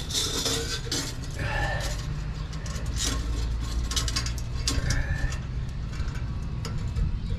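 Scattered clicks and knocks of hand tools working on a car's exhaust pipe and its pipe connector, over a steady low rumble, with two brief squeaks.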